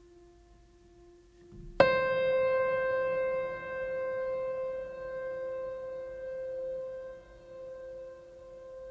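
A faint held tone, then a single piano-like note struck about two seconds in that rings on and slowly fades, wavering a little as it dies away.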